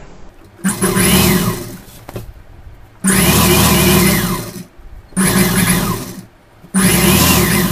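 Industrial sewing machine stitching through cotton fabric in four short runs of a second or so each, stopping briefly between runs as the seam is guided, while a topstitch is sewn along a pocket.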